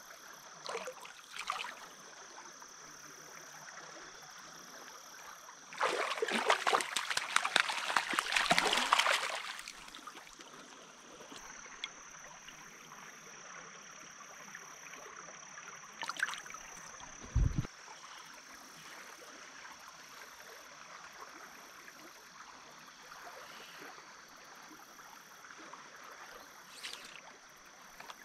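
Small stream flowing steadily, with about three seconds of loud splashing starting about six seconds in, and a few short knocks and splashes, one a low thump a little past halfway.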